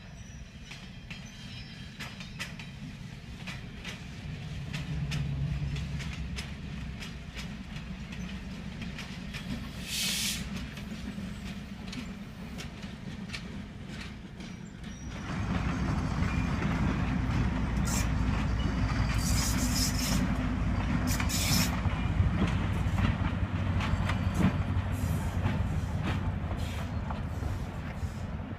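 A heritage train running on the rails: a steady low rumble with the click of wheels over rail joints. It gets louder about halfway through, and a few short high hisses come and go.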